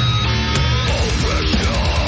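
Death-grind thrash metal song playing loud and without a break, driven by heavily distorted electric guitars.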